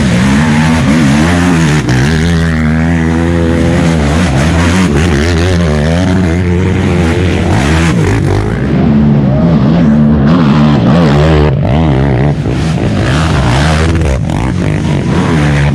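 Racing ATV (quad) engines revving up and down as they climb a steep dirt hill. They are loudest as one quad passes close a little past halfway through.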